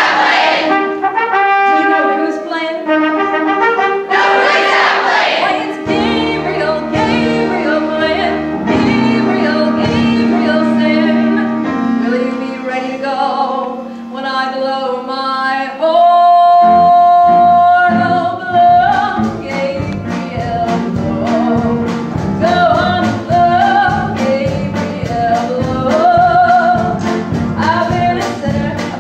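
A live show tune played by a brass-led pit band, with trumpets and trombones and a woman singing with a chorus. About halfway through a long note is held, and then a steady, driving beat comes in.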